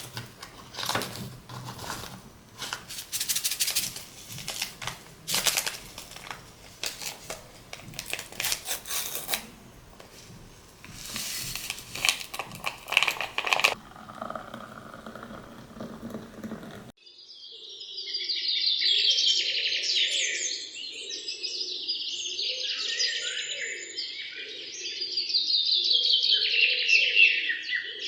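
A run of sharp clicks and knocks for the first half. Then, after an abrupt cut, many birds chirping and twittering together in a dense, fast chorus.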